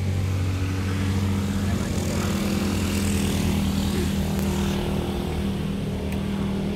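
A motor vehicle's engine running close by with a steady low drone, its road noise swelling through the middle and easing near the end.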